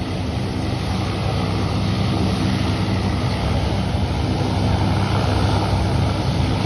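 Propeller aircraft's engine droning steadily, growing slightly louder, with wind noise on the microphone.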